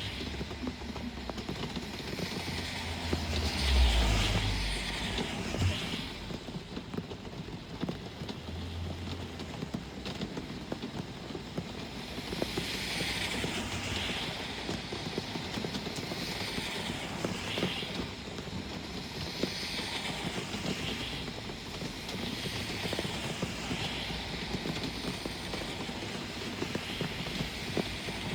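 Steady rain with vehicles passing on a wet road, each tyre hiss swelling and fading; a louder, deeper pass rumbles by about four seconds in, and several lighter passes follow.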